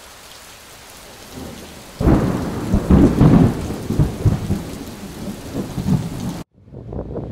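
Steady rain hiss, then about two seconds in a loud clap of thunder that rolls on in a long rumble and slowly fades, cutting off suddenly near the end.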